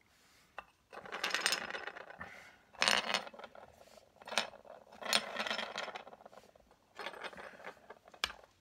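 A rattleback spun by hand on a hard flat surface, rattling and scraping as it rocks, stops and reverses direction. Several separate bursts of clatter come one after another, each fading out.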